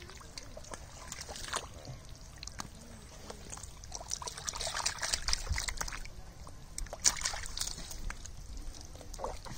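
Shallow muddy water sloshing, trickling and splashing as it is stirred, with a busier patch of splashes about halfway through and another sharp splash a little later.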